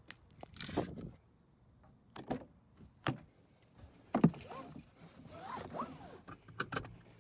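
A series of scattered clicks and knocks, with the sharpest knock about four seconds in and a few short squeaks shortly after.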